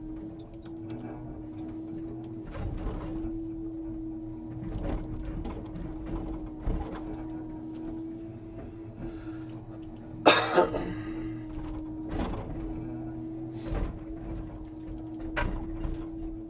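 Timber truck's loader crane at work: a steady hydraulic whine with scattered knocks of logs being handled, and one loud bang about ten seconds in.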